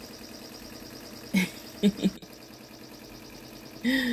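BAI multi-needle embroidery machine running and stitching a design into a hooped towel, a steady rhythmic needle clatter. A few short pitched, voice-like sounds break in about one and a half and two seconds in, and another starts near the end.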